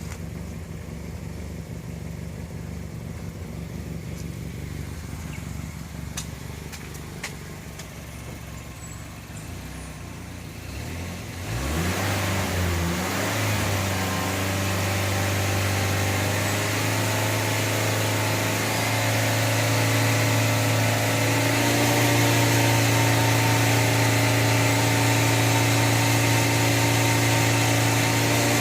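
Mazda CX-7's turbocharged 2.3-litre four-cylinder engine idling, then, a little before halfway, revved up and held at a steady higher speed, louder. The turbo is bad: it smokes and the engine has lost power.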